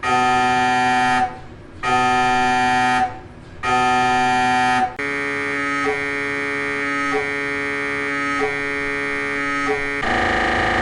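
MRI scanner's gradient coils buzzing through imaging sequences. First come three loud, pitched buzzes of about a second each with short breaks between them. Then a quieter, steady tone follows, marked by a click about every second and a quarter, and a harsher buzz starts near the end.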